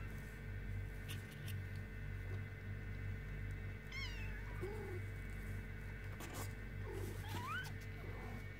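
Kittens mewing during rough play: a few short, high-pitched mews about halfway through and a rising mew near the end, with small scuffling clicks, over a steady background hum.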